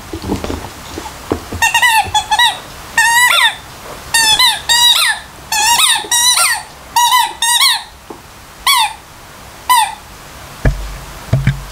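Rubber squeaky toy chewed by a labradoodle, squeaking again and again in quick runs of two to four squeaks as its jaws squeeze it. A dull thud or two near the end.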